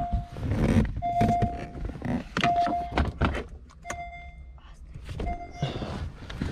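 The car's electronic warning chime sounds as a short tone repeating about every second and a half, over scattered clicks and knocks from interior trim being handled.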